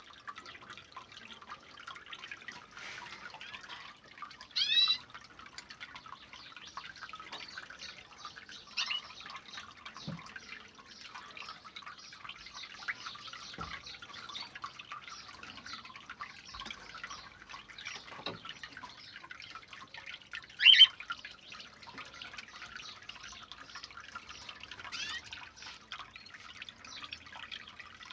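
Small homemade bird-cage fountain with water dripping and trickling steadily. Twice, at about 5 seconds and again near 21 seconds, a bird gives a short, loud chirp over it.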